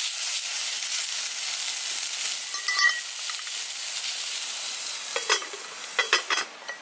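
Food frying and sizzling in a hot pan, a steady hiss, with a short metallic ring about three seconds in and a few knocks of a utensil near the end; the sizzle falls away sharply just before the end.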